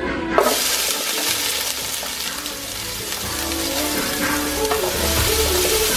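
Chopped onions dropped into hot olive oil in a large metal stockpot, frying with a loud sizzle that starts suddenly about half a second in and keeps going.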